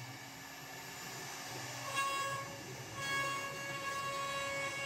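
CNC router's 3.5 kW electrospindle whining at a steady pitch, several tones at once, as its 60-degree cone cutter mills a relief into MDF; the whine weakens in the first couple of seconds and comes back stronger about two and three seconds in as the cutting load changes.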